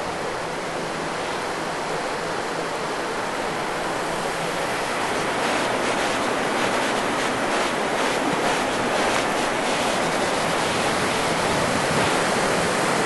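Steady rushing of a fast-flowing river tumbling over boulders in white-water rapids, growing slightly louder toward the end.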